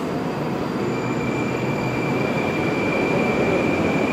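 Moscow Metro 81-765.2 "Moskva" train pulling out of the station, with a steady rumble of the moving cars and a steady high whine that comes in about a second in.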